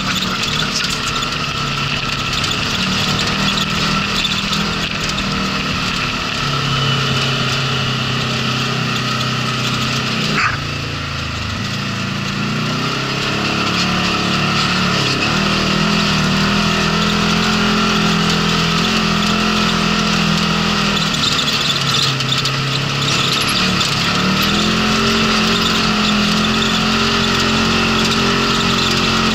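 Polaris RZR side-by-side engine running under way, its note stepping up and down with the throttle. About a third of the way in the pitch drops sharply, then climbs back, and it dips and rises again a couple more times.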